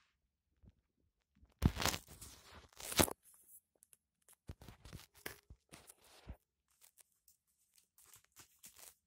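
Handling noises: hands rubbing and pressing on the plastic netbook casing, with two louder rubbing, crackling bursts about two and three seconds in, then scattered light clicks and scrapes.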